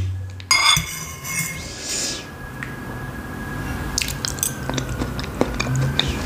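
A metal fork clinks and rings against the bowl about half a second in. Then come close-miked chewing and wet mouth clicks as soft khinkali dumplings in cream sauce are eaten.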